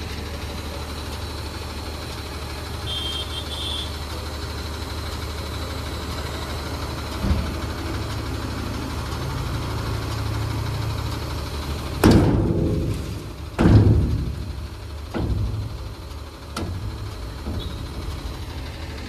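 Tata dumper truck's diesel engine running steadily with the tipper body raised after tipping sand. About twelve seconds in come two loud bangs a second and a half apart, then a few fainter knocks.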